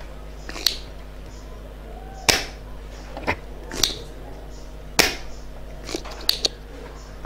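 Spring-loaded desoldering pump (solder sucker) firing again and again as solder is cleared from joints on an amplifier circuit board: about eight sharp snaps, a second or less apart, the loudest about two and five seconds in, over a steady low hum.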